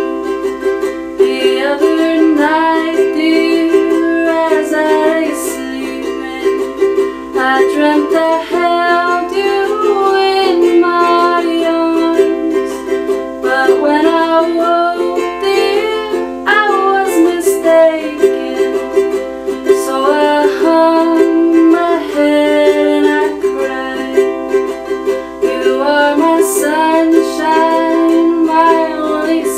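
Ukulele strummed in a steady rhythm, with a woman's voice carrying a melody over the chords.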